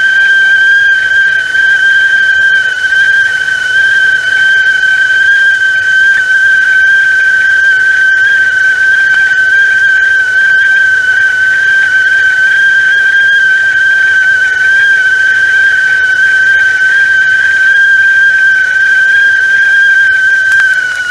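Stovetop tea kettle whistling at the boil: one loud, steady high-pitched whistle held without a break.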